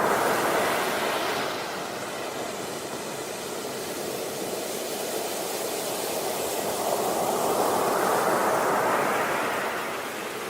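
Sea waves breaking on a beach: a wash of surf at the start that eases off, then another wave swells and breaks in the second half, fading again near the end.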